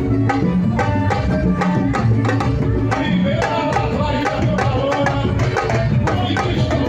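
Live Bahian samba de roda band playing: dense hand-drum percussion keeping a quick, steady beat, with a wavering melodic line over it.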